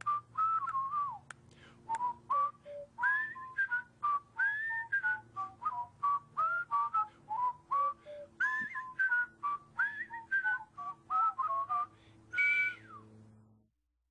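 A whistled tune of short, clear notes that step up and down, over steady low accompanying tones with soft clicks between notes. It ends on a high rising note and then cuts off abruptly.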